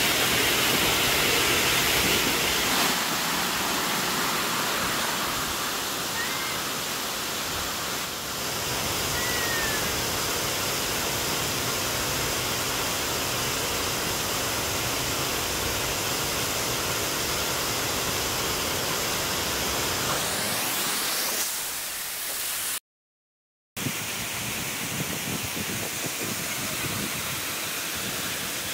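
Waterfall rushing in a steady, even noise. Two faint short chirps come a few seconds in, and the sound drops out completely for about a second near the end.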